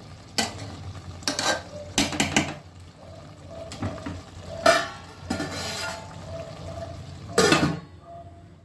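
A metal spoon stirring a pot of thick chicken curry, scraping and clanking against the pan in about seven separate strokes with a faint metallic ring between them. The last stroke, near the end, is the loudest.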